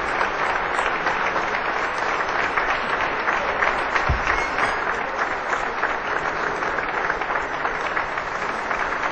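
Sustained applause from many people clapping, dense and steady. A brief low thump about four seconds in.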